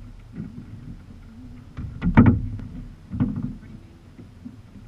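Sea kayak on the water: paddle strokes and water sloshing against the hull, with a louder splash or knock about two seconds in and another about a second later.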